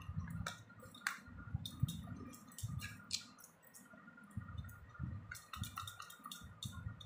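A knife cutting poda pitha, a dense baked rice cake, in a steel plate: irregular sharp clicks and clinks as the blade meets the metal plate, with dull knocks as it presses through the cake. Glass and metal bangles on the cutting wrist clink along with the strokes.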